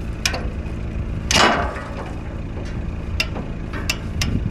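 A vehicle engine idling steadily, with several sharp clicks and knocks over it, the loudest about a second and a half in.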